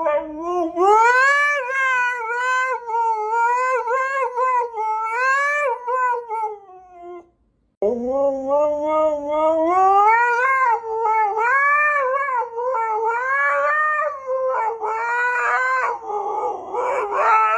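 Husky howling in long, wavering calls that rise and fall in pitch, with a short break about seven seconds in before it starts again.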